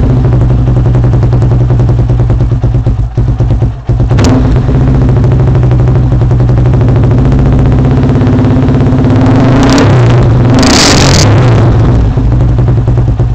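Yamaha Warrior 350 ATV's single-cylinder four-stroke engine running loud through an HMF aftermarket exhaust, holding a steady note. It is revved briefly about four seconds in and again, longer and louder, around ten to eleven seconds in.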